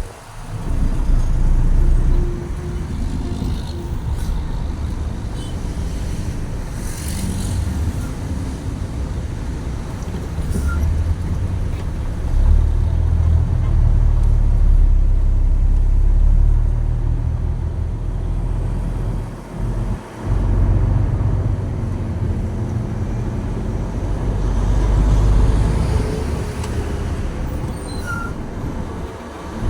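Heavy truck's diesel engine running under way with road noise, a steady low rumble heard from inside the cab. The engine sound dips briefly about two-thirds of the way through, then picks up again.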